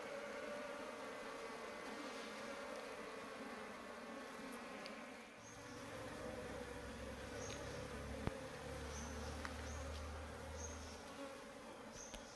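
A mass of honeybees buzzing in a steady hum as the colony clusters on a hollow log and the wall of a wooden hive box during its transfer into the box. A low rumble joins for several seconds in the middle.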